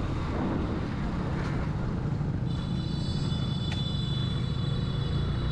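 Motorcycle engine running on the move, a steady low rumble. About halfway through, a thin high whine joins in and holds, and there is one brief tick a little after it starts.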